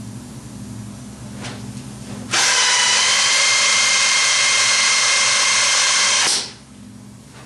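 3M Dynamic Mixing System dispensing gun running for about four seconds, a steady motor whine with several pitched lines, as it pushes two-part body filler through its rotating mixing nozzle onto a spreader. It starts about two seconds in and cuts off sharply.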